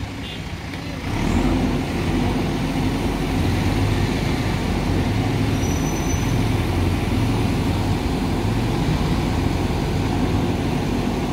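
JCB 3DX backhoe loader's diesel engine running steadily under hydraulic load as the backhoe arm works, getting louder about a second in and then holding.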